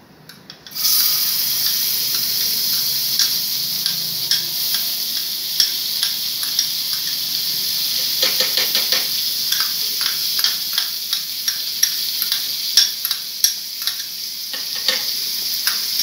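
Butter sizzling as it hits hot ghee in a steel pan, starting suddenly about a second in and hissing steadily as it melts for a tadka, with a spoon clicking against the pan.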